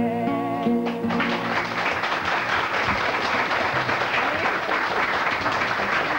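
The last held note of a song with guitar ends about a second in, then an audience applauds steadily.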